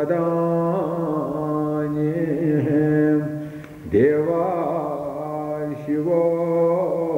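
A male voice chanting in long held tones over a steady drone. The pitch dips and swoops back up about four seconds in.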